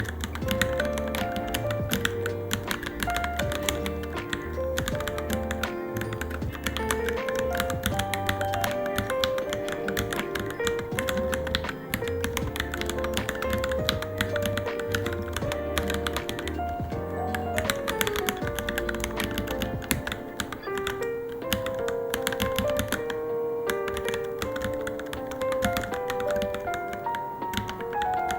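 Typing on a Varmilo Minilo mechanical keyboard: a rapid, irregular run of keystroke clicks, over background music whose deep bass line drops out a little past the middle.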